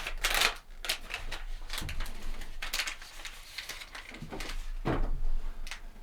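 Irregular knocks, clicks and scrapes, a handful of them sharper and louder than the rest.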